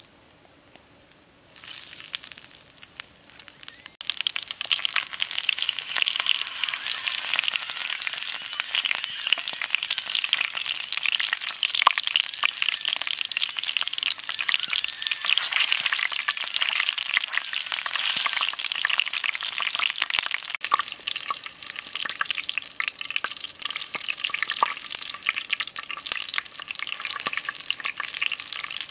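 Centipedes frying in hot oil in a pan over a wood fire, a dense sizzling and crackling. It starts about a second and a half in and grows loud a few seconds in as the pan is stirred.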